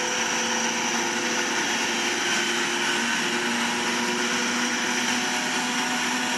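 Small steam turbine driven by steam from the reactor, running with a steady whine over a hiss of steam. Its pitch creeps slightly upward in the second half as the turbine gains RPM.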